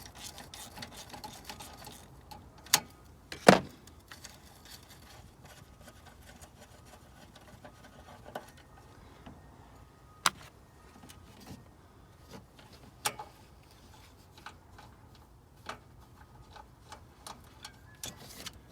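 Hand tools working on a car battery's hold-down bracket: irregular sharp metallic clicks and clinks, with fainter ratchet-like ticking in between, as the bracket's 10mm bolt is loosened.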